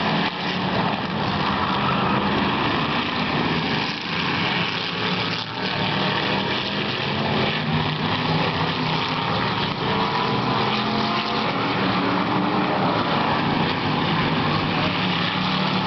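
Several race car engines running on a short oval track, a steady mixed engine drone with revs rising and falling.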